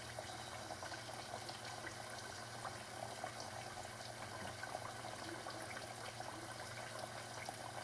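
Garnet yam fries blanching in canola oil held at about 220 °F, a low-temperature first fry: a gentle, steady bubbling with faint scattered crackles.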